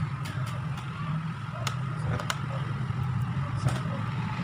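Several sharp clicks and taps of a laptop's plastic back cover and parts being fitted and handled, over a steady low hum.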